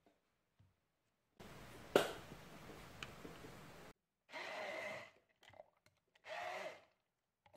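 Immersion blender pureeing softened frozen mango chunks in a plastic beaker. It runs for about two and a half seconds, with a sharp knock about two seconds in, then is pulsed in two short bursts with a motor whine.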